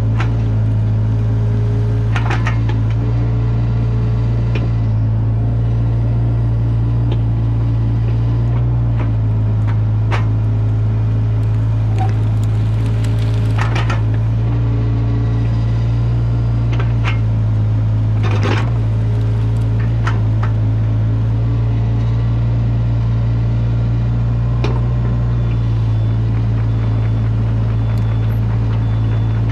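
Caterpillar 305 mini excavator's diesel engine running steadily as the arm works, with scattered knocks and rattles from the steel rake teeth dragging through soil and brush, the sharpest knock a little past halfway.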